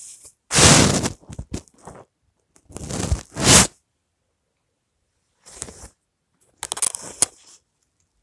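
Phone handling noise: scraping and rubbing against the phone's microphone in four or five short bursts, with a couple of sharp clicks near the end.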